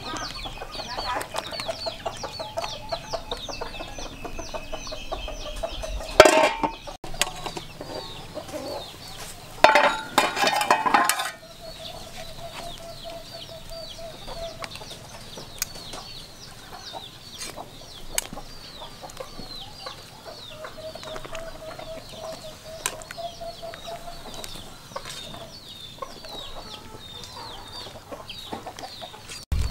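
Chickens clucking, with a constant high cheeping of chicks. About ten seconds in comes a louder call lasting over a second, and a sharp clatter a few seconds before it.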